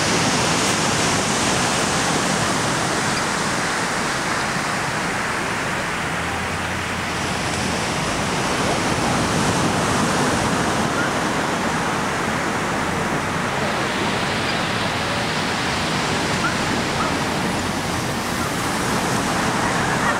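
Ocean surf washing onto a beach: a steady rushing noise that swells and eases slightly without stopping.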